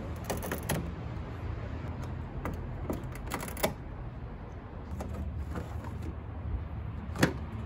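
Plastic push clips on a 2006 Lexus IS250's trunk-lid liner being pried at with a flathead screwdriver and a plastic trim removal tool: scattered clicks and snaps, the sharpest one near the end, over a steady low rumble.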